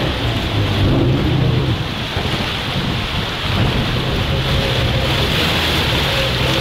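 River water rushing and splashing as a barrel raft rides through a rapid's standing waves, with the raft's outboard motor running steadily underneath.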